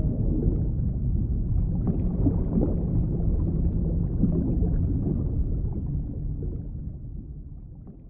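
Low, rumbling underwater ambience with no clear tones, fading away over the last couple of seconds.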